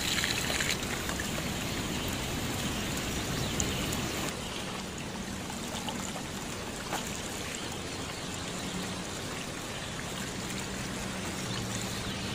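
Steady stream of water pouring and splashing into a metal basin of sliced bamboo shoots being rinsed, then onto shoots in a woven bamboo basket near the end.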